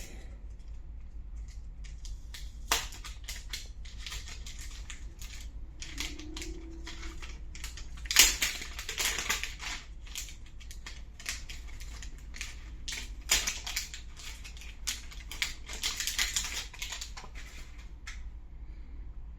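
Packaging and accessories handled by hand: irregular crinkling, crackling and small clicks. They are loudest about eight seconds in, with a low steady hum underneath.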